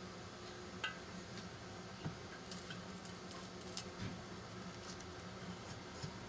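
Light handling noises: a few faint clicks and taps, with some soft crinkling, as masking paper is peeled off a freshly painted ATV oil tank, over a steady low hum.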